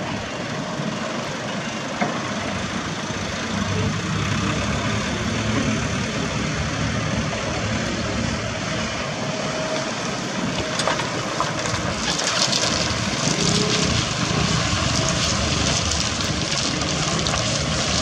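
Diesel dump truck engines running steadily with a low rumble, and a hissing noise added from about twelve seconds in.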